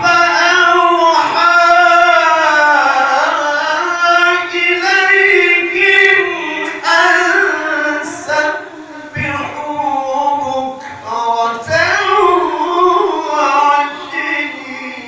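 A qari's voice reciting the Quran in melodic tilawah style, singing long ornamented held notes in a high register that waver and glide. It breaks briefly for breath about two-thirds of the way through.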